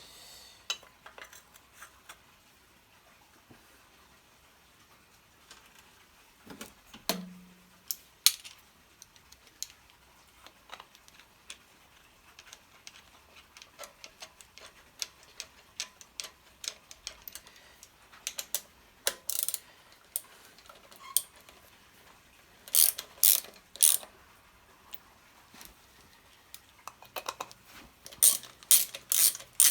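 Scattered metallic clicks and taps as engine parts and tools are handled, then near the end short runs of rapid clicking from a ratchet wrench turning bolts.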